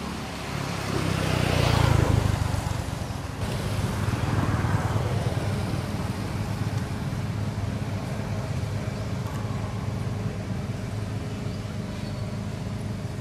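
A motor vehicle passes by, loudest about two seconds in, with a second, weaker swell a couple of seconds later, over a steady low engine hum.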